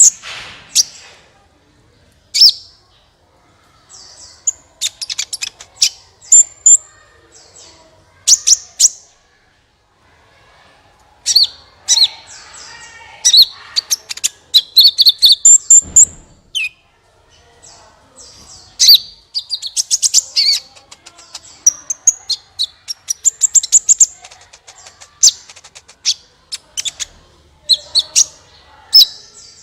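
Sunbird (the Indonesian hobbyists' 'kolibri') singing: clusters of loud, high, sharp chirps and fast twittering trills separated by short pauses. A dull thump sounds once about halfway through.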